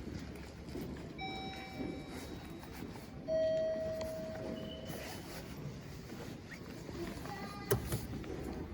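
Mitsubishi AXIEZ elevator's electronic signal tones: one steady beep about a second in, then a louder, lower tone lasting a second and a half about three seconds in, the elevator's button or chime signals. A sharp click near the end.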